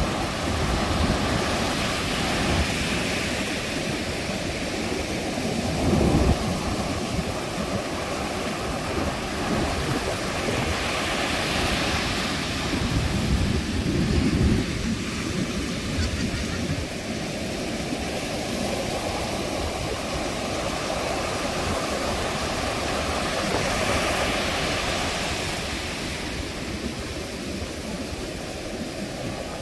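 Ocean waves breaking on a beach in a continuous wash of surf, with waves swelling and crashing every several seconds.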